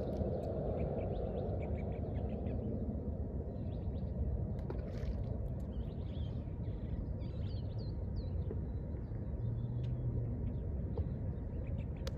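Steady low outdoor rumble with small birds chirping throughout in quick, short calls.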